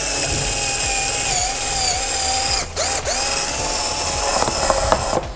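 Cordless drill running steadily, boring a wood bit through a plywood block to open up a hole for a threaded rod. Its whine briefly drops twice, about two and a half to three seconds in, and a few clicks come near the end before the drill stops.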